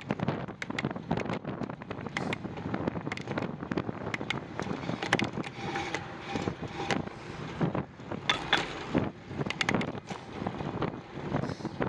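Wind buffeting the microphone of a moving bicycle, with frequent small clicks and rattles from the bike, a short squeal about halfway through and brief high squeaks a little later.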